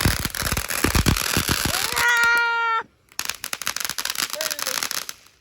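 A ground firework crackling with rapid popping. About two seconds in, a held high-pitched scream rises over it. The crackling cuts off abruptly just before the third second, then starts again.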